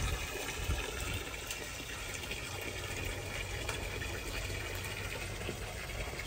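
A steady, even rushing noise with a faint low rumble, water-like in character.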